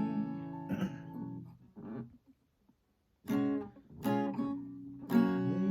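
Acoustic guitar strumming chords between sung lines; the chords ring out and stop completely for about a second midway, then the strumming starts again.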